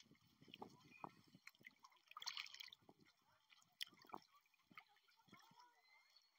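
Near silence, with faint scattered clicks and a brief soft hiss a little over two seconds in.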